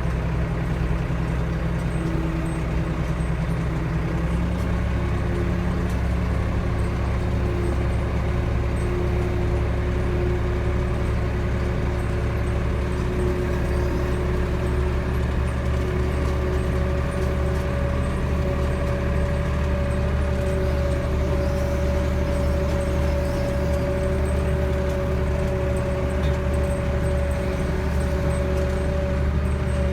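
Tractor engine running steadily, with a thin whine above it that steps up in pitch a few times over the stretch.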